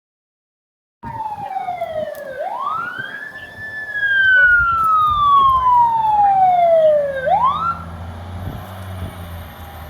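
Fire engine siren wailing: after a second of silence it starts on a falling tone, climbs quickly, then falls slowly over several seconds and climbs once more before cutting off, with the truck's engine rumbling underneath and the whole sound loudest in the middle.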